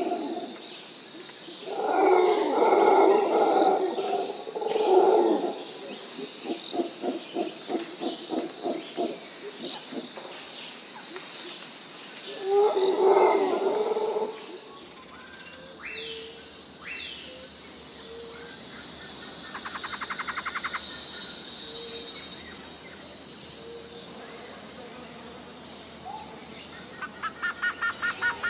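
Wild animal calls in a natural soundscape: a few loud calls with a rapid run of pulsed calls between them, over a steady high-pitched hum. About halfway through, the ambience changes to quieter bird chirps and trills.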